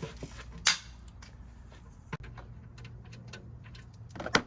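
Ratchet with a 14 mm socket clicking as it loosens an engine oil drain plug: one sharp click about a second in, faint ticking after it, and a few louder clicks near the end.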